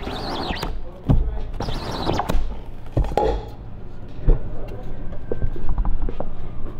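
Rubber squeegee dragged twice across a screen-printing screen, scraping black plastisol ink through the mesh. It is followed by several dull thumps and knocks from the manual press as the screen is handled and lifted off the platen.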